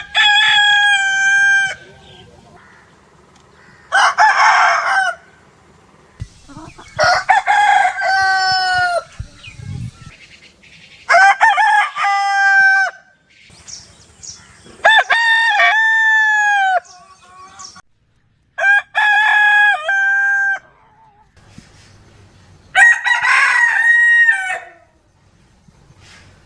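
Rooster crowing, seven separate cock-a-doodle-doos of about two seconds each with pauses between, each call holding its pitch and then dropping away at the end.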